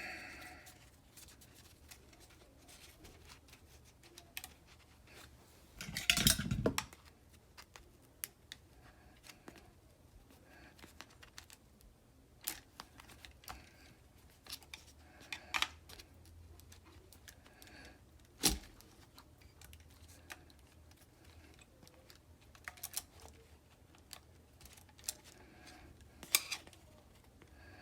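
Scattered small clicks and taps of hands working seat belt webbing into its retractor mechanism, with a louder rattle about six seconds in and a single sharp click about two-thirds of the way through.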